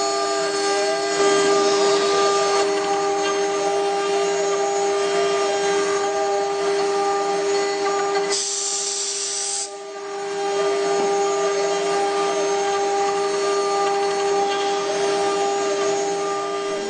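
CNC router spindle running at a steady high whine while its cutter mills a carving, with a wavering cutting tone that rises and falls as the tool moves. About eight and a half seconds in the sound briefly turns to a hiss and drops, then the spindle whine returns.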